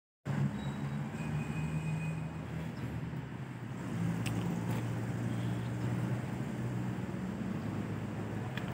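Truck engine idling steadily with a low hum, with a few faint clicks about four to five seconds in.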